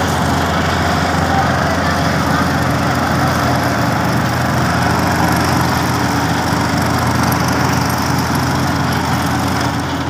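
Asphalt paver's engine running steadily at a constant speed as the machine lays asphalt.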